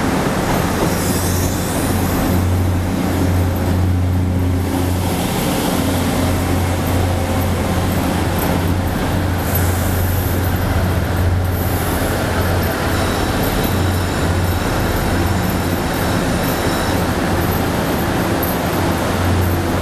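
Electric train standing at a platform, its onboard equipment giving a steady low hum over a noisy background, with faint high-pitched whines for a few seconds past the middle.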